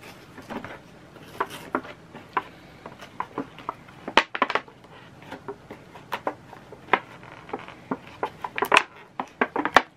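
Irregular light clicks and taps of small hard plastic items being handled, as the sunglasses' packaging and accessories are unpacked.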